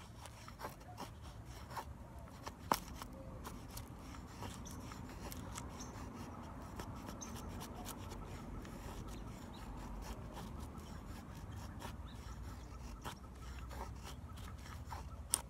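Ka-Bar Becker BK-2's thick steel blade shaving curls down a wooden stick to make a feather stick: quiet, repeated scraping strokes of the edge through the wood, with a sharp click about three seconds in and another near the end.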